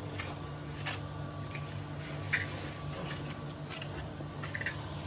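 Soft wet squelching of ripe mango pulp squeezed and scraped off the seed by hand, with a few small sticky clicks, over a steady low hum.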